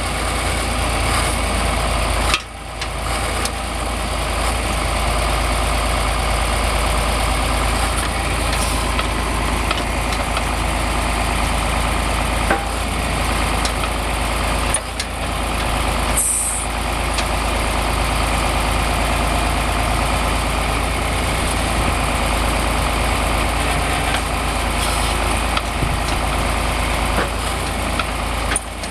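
Tractor engine running steadily, with a few brief dips in level.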